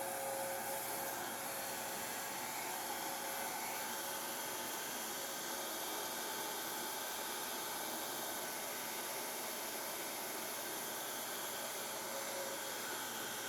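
Hair dryer running steadily on its low setting, a continuous even rush of air.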